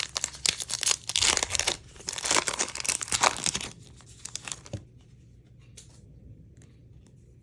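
Trading-card pack wrapper being torn open and crinkled in the hands for about three and a half seconds, then quieter handling with a single small tap near the five-second mark.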